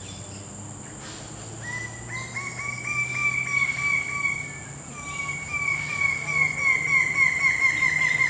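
A long, rapid trill of high, evenly pitched calls from a bird or insect. It starts about a second and a half in, pauses briefly midway, then runs on, over a steady high whine.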